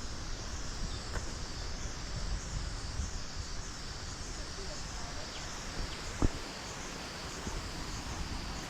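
Steady high-pitched insect chorus with a regular pulsing beat, over a low rumble; a single sharp knock about six seconds in.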